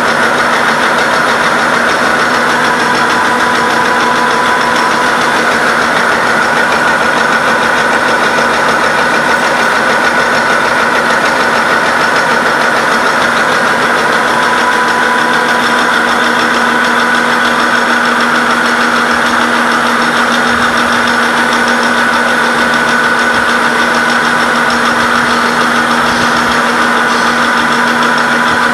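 Heavy-duty all-geared vertical milling machine taking a face-milling cut on a steel die block: a loud, steady cutting noise with constant high whining tones.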